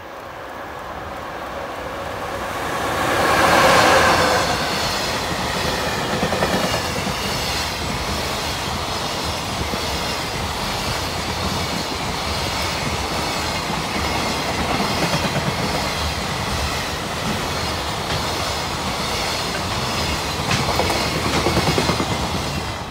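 A JR Freight EF66 electric locomotive and its long train of container wagons passing through a station. The sound builds as the locomotive approaches and is loudest as it goes by about four seconds in. Then comes a steady run of wheel clickety-clack and rumble from the container wagons, swelling once more near the end as the last wagons pass.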